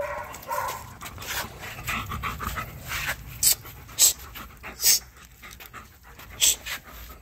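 A wolfdog panting close by, with four short, sharp breaths between about three and six and a half seconds in.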